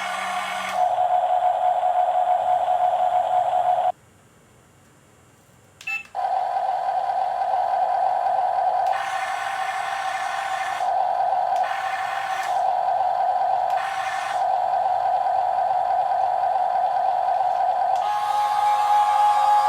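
Electric gear motors of a Huina RC excavator whining steadily as it is driven. They stop for about two seconds around four seconds in, then start again, with other motors joining in several short spells that add a higher-pitched layer.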